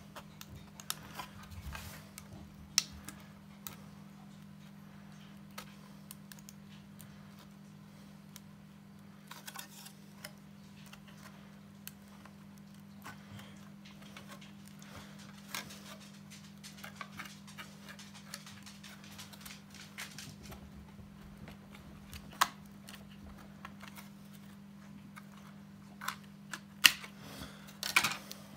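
Tin snips cutting a white plastic sheet: irregular sharp snips and clicks with pauses between them, a few louder snaps near the end. A steady low hum runs underneath.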